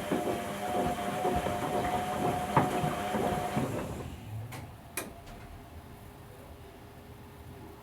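Whirlpool Indiana 1400 washing machine's drum turning, with a steady motor whine and the toy ducks and load knocking about inside. About four seconds in the drum motion dies down, two sharp clicks follow, and a quieter steady hum is left.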